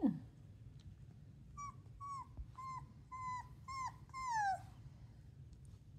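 Miniature Australian Shepherd puppy whining: about six short high cries in a row, each dropping in pitch, the last one longer with a drawn-out downward slide.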